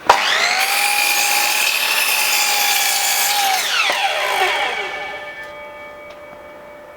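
Scheppach HM100LXU 254 mm sliding compound mitre saw starting up suddenly to a steady high whine and cutting through an old scaffolding board for about three and a half seconds. It is then switched off and winds down, the pitch falling away and fading.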